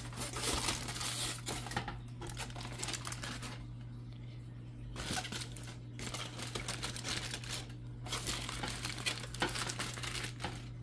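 Aluminium foil crinkling and rustling as it is folded around a rack of ribs, in several bursts with short pauses between them.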